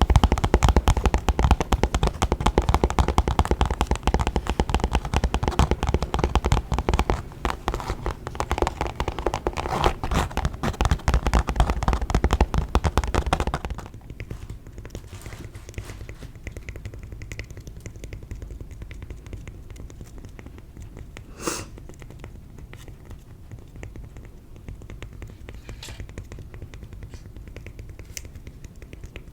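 Rapid, dense tapping on a makeup bag for about the first half. It stops abruptly and gives way to quieter, sparse taps on cork, with one sharper click about two-thirds of the way through.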